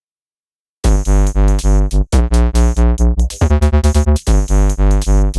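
Electronic background music with synthesizer chords and a steady, heavy drum-machine beat, starting about a second in after a moment of silence.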